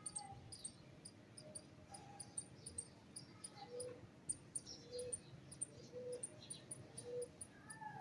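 Faint birds chirping: quick, high, short chirps several times a second, with lower short call notes about once a second in the second half.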